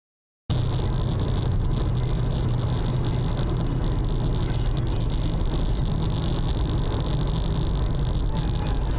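Steady in-cabin running noise of a car driving along a highway, engine and tyre rumble picked up by the dashcam's microphone. It starts suddenly about half a second in, after a moment of total silence.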